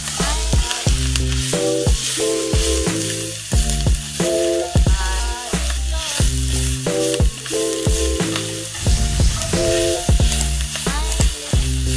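Shredded cabbage, carrots and bell pepper sizzling in soy sauce in a hot wok, stirred with a metal spatula that clicks and scrapes against the pan. Background music with held chords and a bass line plays over it.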